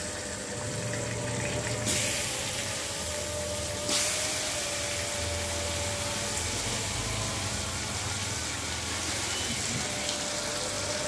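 Marinated chicken pieces sizzling in hot oil and fried onions in a steel kadai. The sizzle jumps louder in two sudden steps, about two and four seconds in, as more pieces go into the pan.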